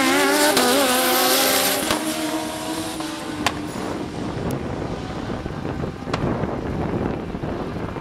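Drag-racing motorcycles running hard down the strip. For about two seconds the engine pitch jumps up and down through the gear changes, then it holds steady and fades as the bikes pull away into the distance.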